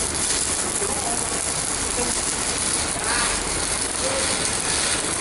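Arc welding with stick electrodes on a CNR 120 welder: the arc crackles steadily and without a break as a rod burns down.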